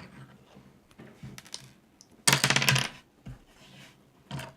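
Loose plastic LEGO pieces clattering in a short rapid run about two seconds in, with a few single clicks of pieces before and after.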